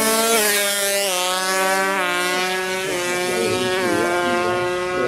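Two-stroke 155cc drag bike at full throttle down the strip. Its pitch climbs and then drops sharply at each upshift, several shifts about a second apart.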